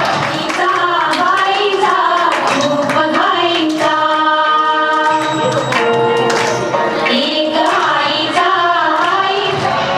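Music: a song with singing over a rhythmic beat, with long held notes about halfway through.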